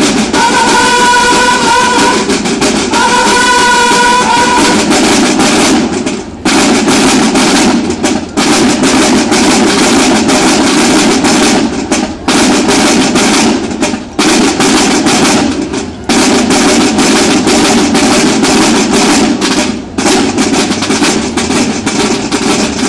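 Banda de guerra of bugles and snare drums playing: the bugles sound held notes over the drums for the first few seconds, then the snare drums carry on alone with loud, dense rolls and rhythms, broken by several brief pauses.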